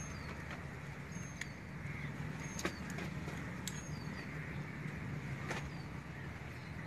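A steady low rumble with a few sharp clicks, and short high bird chirps that fall in pitch, repeated every second or so.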